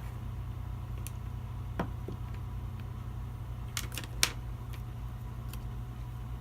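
A few sharp clicks of small parts being handled and fitted together, one a little under two seconds in and three close together around four seconds in, the last the loudest, over a steady low hum.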